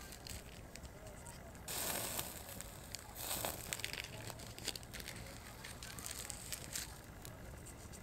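Small wood campfire crackling, with scattered sharp pops. Twice, about two and three seconds in, there is a burst of paper or wrapper crinkling as hands handle it close to the fire.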